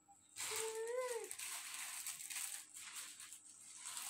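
Plastic packaging bags rustling and crinkling as they are handled. Near the start there is a short high call that rises and then falls.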